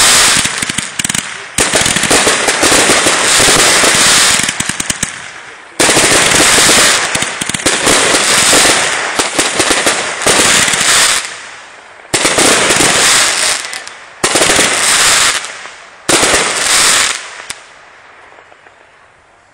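1.4G consumer aerial fireworks bursting overhead: several waves of loud bursts with dense crackling, each starting sharply. The crackling dies away about seventeen seconds in.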